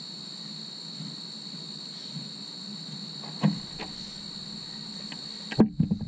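Insects trilling steadily at a high pitch over a low steady hum, with a few sharp knocks partway through and a louder cluster of knocks just before the end.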